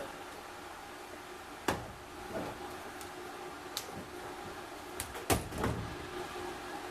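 A handful of scattered knocks and clunks from hands and parts working inside a car's interior during wiring harness removal. The loudest come in a quick cluster a little past five seconds in.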